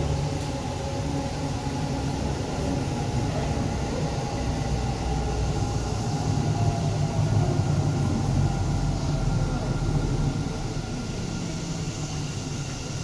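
Namma Metro electric train running along the line: a steady low rumble of wheels on rail with faint steady tones above it, swelling slightly in the middle.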